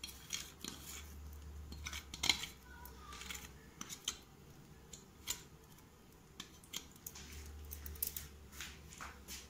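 Faint, scattered light clicks and rustles of a hand sprinkling chopped coriander leaves onto curry in a pot and pressing them in, over a low steady hum.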